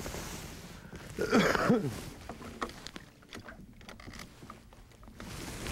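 Scattered light clicks and taps of fishing tackle being handled on a boat, with one short, louder pitched sound falling in pitch about a second in.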